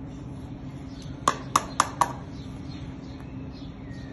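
Four quick sharp taps about a quarter second apart: a child's small plastic toy spade knocking against the hard edge of a soil planter, over a steady low hum.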